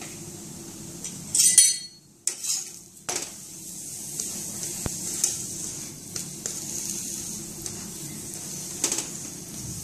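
Stuffed paratha sizzling in ghee on a non-stick tawa while a plastic spatula presses and pushes it, with scattered clicks and scrapes of the spatula on the pan. The loudest clatter comes about one and a half seconds in, the sound cuts out briefly just after, and another clatter comes near the end.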